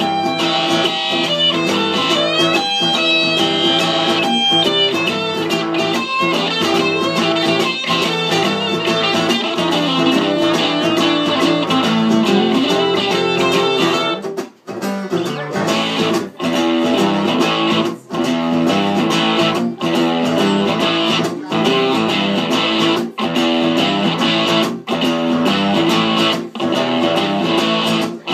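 Live guitar music with no singing: a white electric guitar and a second guitar play together. Halfway through the playing breaks briefly, then turns into a repeated figure cut by short gaps about every second and a half.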